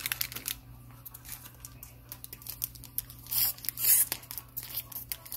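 Foil trading-card pack wrapper crinkling and rustling in the hands, with two louder crackling bursts about three and a half and four seconds in.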